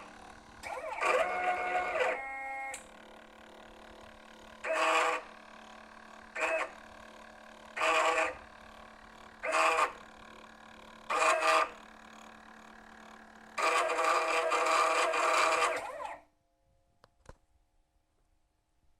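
CNC laser machine's stepper motors humming in short bursts as the gantry makes a series of moves, with a faint steady hum between them. A longer run about fourteen seconds in ends abruptly and the machine goes quiet.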